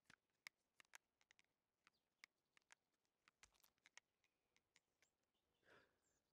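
Near silence with faint, irregular small clicks, like a plastic soap-bubble bottle and wand being handled, and a soft breathy sound a little before the end.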